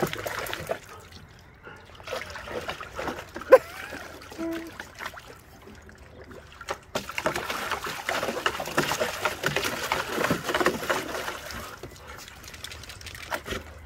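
Water splashing and sloshing in a small plastic tub as huskies stand and paw about in it, busiest from about seven to twelve seconds in, with a single sharp knock about three and a half seconds in.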